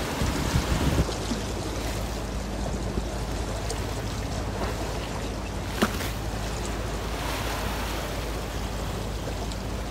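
Ship's wake waves breaking and churning against a river bank for about a second, then a steady wash of wind and water with a low hum beneath it. A single sharp click sounds about six seconds in.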